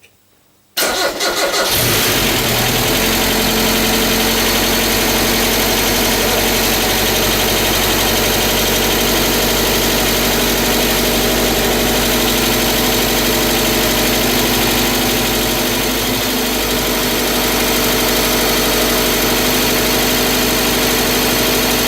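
Freshly rebuilt water-cooled engine cranking briefly and catching about a second in, then running and idling steadily. This is its first start after the rebuild.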